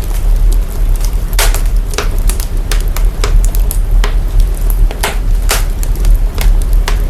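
Fire crackling, processed so that a loud, steady deep rumble runs underneath, with sharp crackles and pops at irregular intervals, about a dozen of them.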